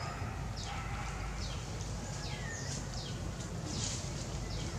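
Birds calling in the background: quick high chirps that sweep down in pitch, repeated about twice a second, over a steady low rumble.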